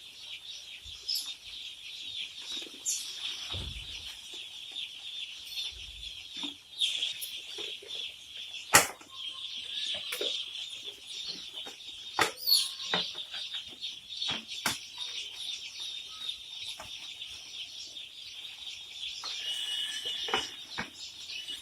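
A large crowd of day-old chicks peeping continuously, a dense high chorus of overlapping calls. Scattered sharp knocks and clatters sound over it, loudest about nine seconds in and again around twelve seconds.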